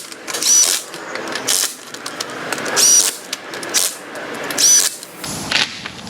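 Power tool running lug nuts onto a car's wheel studs in several short bursts, each a brief whine that rises and falls in pitch.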